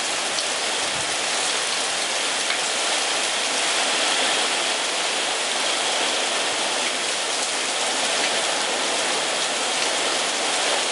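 Heavy storm rain from a tropical-storm rain band pouring down, a dense, steady hiss that does not let up.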